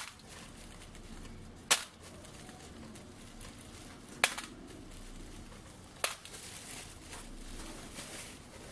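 Four sharp snaps: one at the start, then about 2, 4 and 6 seconds in, with faint rustling of packing material between them.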